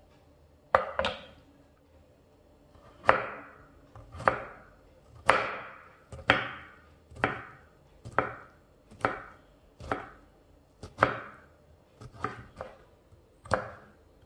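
Kitchen knife slicing through a fresh vegetable onto a wooden cutting board, one unhurried cut at a time. There are about fourteen crisp cuts, roughly one a second, some in quick pairs.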